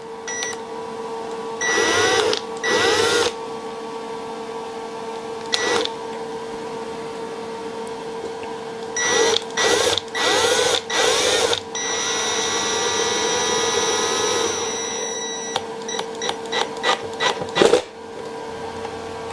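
Cordless power driver spinning a bolt into a hole in an MDF wasteboard. It runs in short trigger bursts at first, then one longer run of about three seconds, then a few quick blips near the end as the bolt is snugged tight. A steady hum sits underneath.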